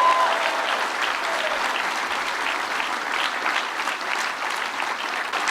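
An audience applauding steadily, a dense patter of many hands clapping, following an applause line in a political speech.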